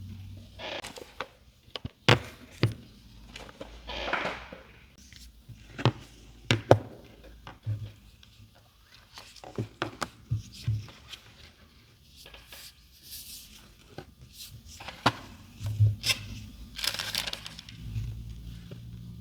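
Handling of a smartphone and its packaging: scattered clicks, taps and knocks, with packaging rustling a few times.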